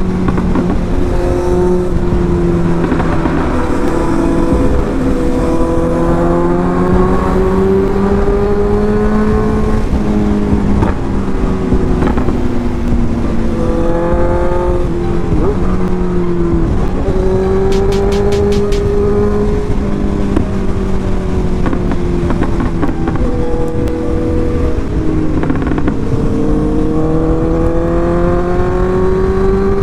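Honda CB650F inline-four motorcycle engine running under way, its pitch rising and falling with the throttle, with short dips and rises in the middle and near the end, over wind and road noise.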